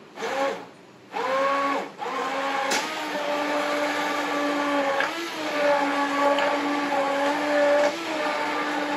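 Hand-held stick blender puréeing cooked potato soup in a metal pot. It gives two short pulses, then runs steadily from about two seconds in, with its pitch dipping briefly twice.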